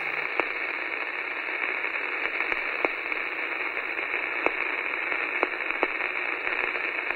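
Steady radio static: an even hiss with sharp crackles scattered through it at irregular intervals.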